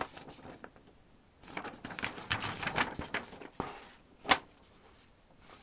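Large folded paper lyrics sheet being unfolded and handled, rustling and crinkling in several bursts, with one sharp crack about four seconds in.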